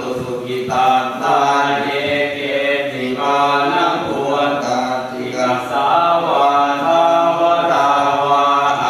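Thai Buddhist chanting (suat mon): voices reciting verses on steady, level pitches, without pause.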